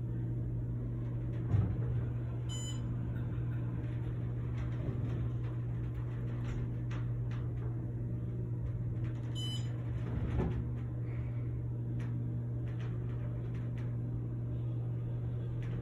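Otis elevator car descending, with a steady low hum from the running car. A short high electronic beep sounds twice, about seven seconds apart, as the car passes floors.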